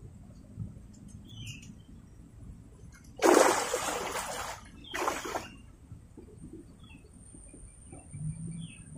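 A hooked giant snakehead, tiring, thrashing at the water's surface: two loud splashes, the first a little over a second long about three seconds in, the second shorter about five seconds in. Faint bird chirps in the background.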